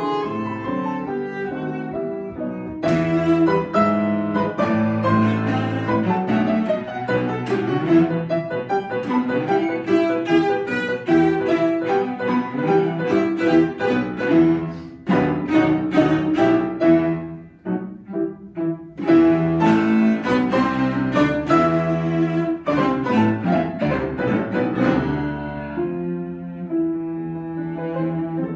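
Cello and Yamaha grand piano playing classical chamber music together, the bowed cello sustaining notes over busy piano figures. The playing thins out briefly about two-thirds of the way through, then both come back in strongly.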